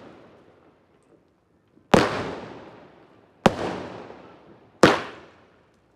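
A multi-shot firework cake fires aerial shells, making three sharp bangs about a second and a half apart. Each bang dies away over about a second.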